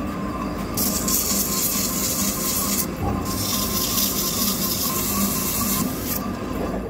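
Lathe running with the Caterpillar 777 suspension strut barrel spinning, and a steady hiss of a hand-held blue pad rubbing against the freshly faced end of the barrel. The hiss starts about a second in, breaks off briefly near three seconds, and stops near six seconds while the lathe keeps running.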